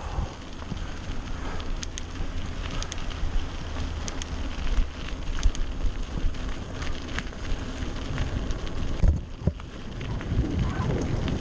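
Voodoo Hoodoo mountain bike riding over a rough trail: tyres crackling over dirt and stones, with scattered clicks and rattles from the bike and wind buffeting the microphone. It eases briefly about nine seconds in.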